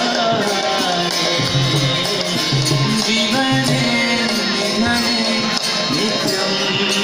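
Devotional kirtan music: singing over jingling hand percussion, running steadily.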